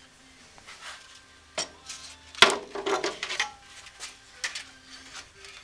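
Abrasive belt being taken off a homebuilt 2x72 belt grinder: a series of metal knocks and clanks, the loudest about two and a half seconds in, with a short rattle after it.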